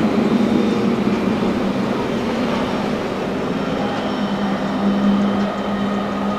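Boat engines running with a steady low drone over a rushing noise, the drone strongest about five seconds in.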